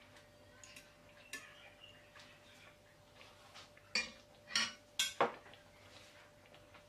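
A few light clinks and knocks of plates and cutlery, the loudest four close together about four to five seconds in, over a faint steady hum.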